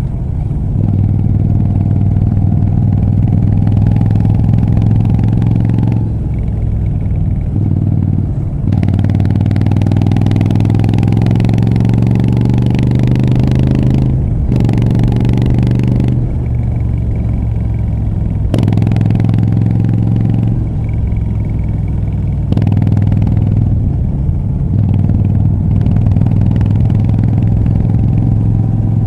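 Moto Guzzi V7 III Rough's air-cooled transverse V-twin, breathing through a short Mistral exhaust, pulling the bike along under way. Its pitch climbs in one long rising pull through the first half, and it dips briefly at several gear changes between spells of steadier running.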